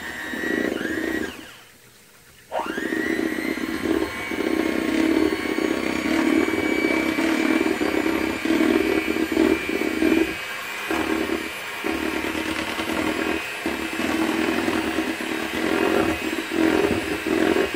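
Electric hand mixer running with its beaters turning in cake batter, a steady motor whir. About two seconds in it stops briefly, then winds back up with a rising whine.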